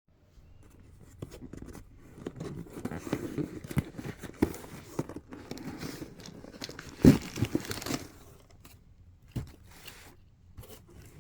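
Packaging being handled and torn open: paper or plastic crinkling and tearing with scattered small knocks, the loudest knock about seven seconds in, then quieter rustling.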